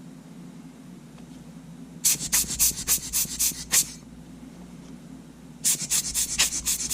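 Quick hissing cleaning strokes, about seven a second in two runs, starting about two seconds in and again near the end, as sand is worked out of a Sony A7's shutter button assembly.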